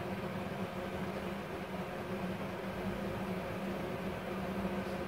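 Steady machine hum with an even hiss from a Multipro TIG 400D G-TY welder and its torch water cooler switched on and running, the cooling fan and coolant pump going without change.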